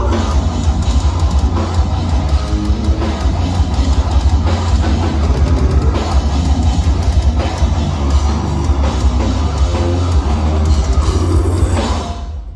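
Heavy metal band playing at full volume, with pounding drums and distorted electric guitars over a heavy low end, heard from the crowd on the club floor. The band stops just before the end.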